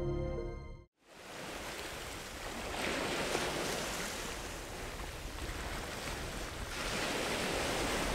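Baltic Sea waves breaking on the shore: a steady rush of surf that surges louder about three seconds in and again near the end. Just before it, background music cuts off in the first second.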